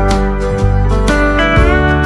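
Background music: a pitched instrumental melody over a low bass line, with one note sliding upward in pitch about halfway through.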